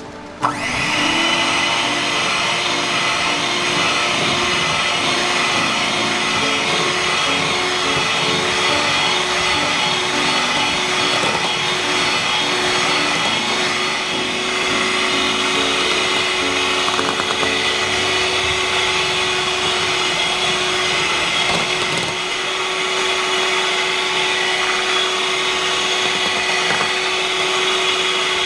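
Electric kitchen appliance motor processing the avocado ice cream mixture: it starts up about half a second in and then runs steadily with a constant hum and whine.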